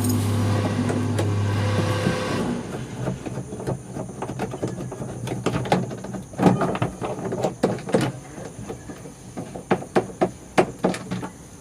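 Scattered knocks and clicks of the front dashboard cover in a backhoe loader's cab being unlatched and handled. A steady low hum runs through the first couple of seconds and then fades out.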